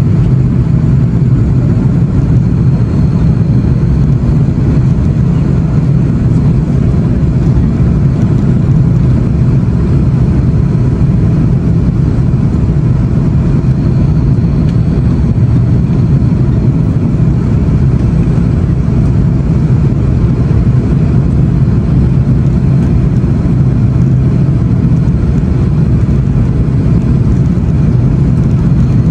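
Steady, loud cabin roar of an Airbus A330-300 on final approach, heard from a seat over the wing: its Rolls-Royce Trent 700 engines running at approach power, mixed with airflow rushing over the wing. There are no bumps or changes, and touchdown has not yet come.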